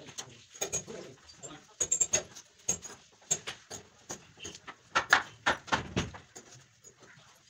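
Irregular wooden knocks and clicks as a softwood post is worked into a joint in a timber frame, wood striking wood. The knocks come thick and loudest about five to six seconds in.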